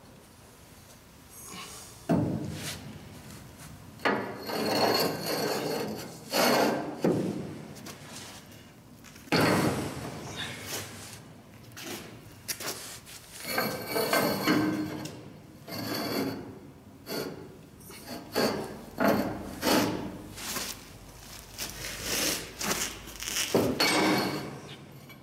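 A cheater pipe scraping and grinding against a welded steel test plate as it is levered back and forth to bend the plate. The sound comes in repeated rough bursts of a second or two, starting about two seconds in. This is a bend test of the weld.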